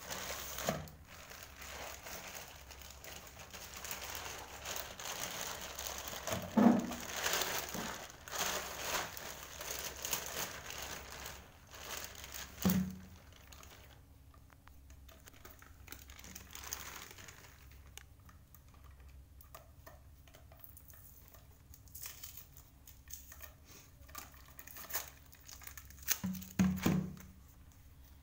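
Plastic courier mailer bag crinkling and tearing as it is opened and handled, loudest through the first half, then quieter rustling. A few dull knocks come in the middle and near the end as cardboard tubes are handled.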